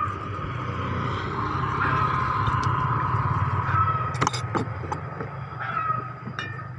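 A motor vehicle's engine passing, growing louder to a peak in the middle and then fading, with a few sharp clicks a little past halfway.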